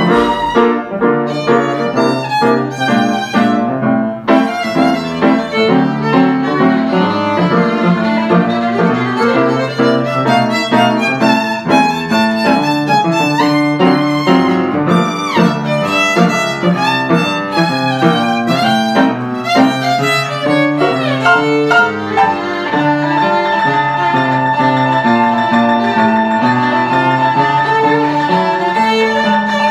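Violin and upright piano playing together, a busy passage of quick notes. About three-quarters of the way through, the violin settles on one long held high note while the piano keeps playing beneath it.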